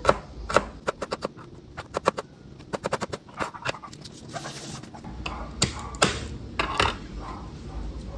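Chef's knife chopping red onion on a plastic cutting board: quick, irregular runs of sharp knocks in the first half, then a few spaced single knocks.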